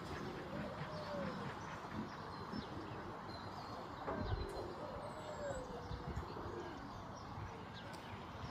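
A dog whining: two drawn-out whines that rise and fall, one near the start and one about halfway, over a steady background hubbub.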